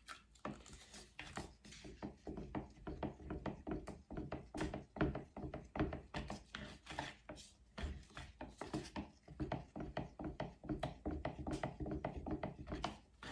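Wooden stir stick knocking and scraping against the sides of a plastic pitcher as thick white pillow paint is stirred to work in added water, a quick run of light knocks about four a second.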